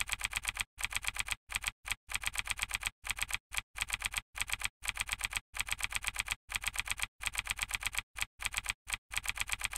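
Typewriter sound effect: rapid key clacks at about eight strokes a second, in runs of several strokes broken by short pauses.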